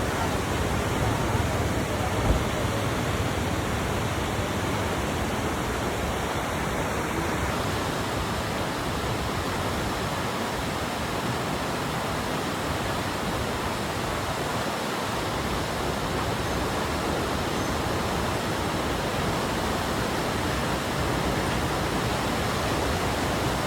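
Rupse Waterfall in heavy flow: a steady, loud rush of falling water. A single brief knock about two seconds in.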